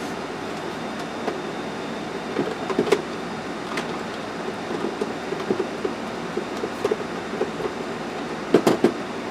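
Saab 9000's climate-control blower fan running steadily, with scattered light clicks and knocks, a cluster of the loudest near the end.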